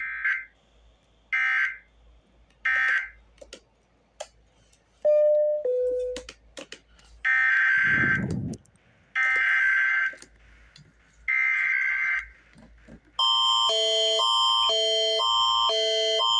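Electronic alert tones. First come three short high beeps, then two lower tones stepping down, then three longer high tones. About 13 seconds in, a continuous attention signal starts: tones alternating about twice a second over a steady high tone, in the style of Canada's Alert Ready emergency alert signal.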